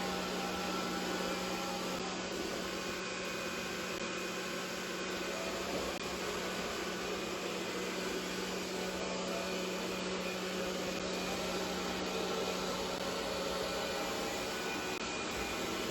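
Roborock E5 robot vacuum cleaner running steadily: an even motor hum and hiss with a few constant tones.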